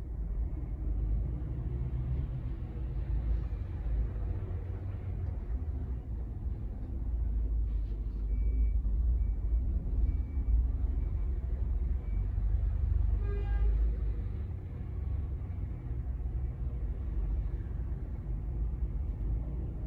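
Lorry diesel engines rumbling at low revs. A run of short high beeps comes about halfway through, and a brief toot follows shortly after.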